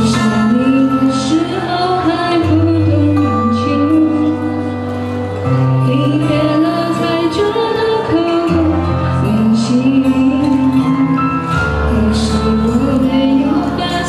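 A woman singing a slow melody into a microphone over instrumental accompaniment, with long held notes.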